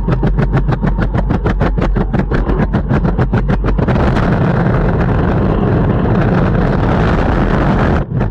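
Longboard wheels rolling over pavement, clacking rapidly and evenly as they cross the paving joints. About four seconds in the clacking gives way to a steady rolling rumble on smoother ground, with a brief drop just before the end.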